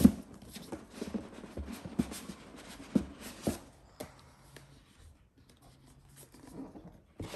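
Cardboard retail box being handled and opened: scraping and rubbing of cardboard with light knocks as the lid is worked loose and lifted, and a louder scrape near the end.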